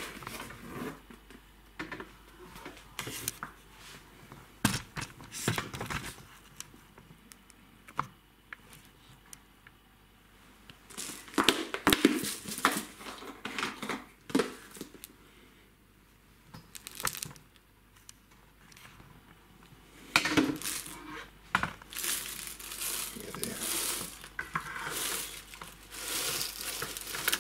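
Detergent packaging handled on a worktop: plastic and cardboard crinkling and rustling with scattered clicks and knocks, in several bouts, the longest over the last few seconds.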